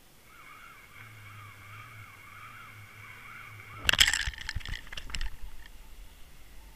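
Underwater camera microphone picking up a faint wavering whine over a low hum, then about four seconds in a loud burst of knocks and splashes as the camera comes up against the boat's hull.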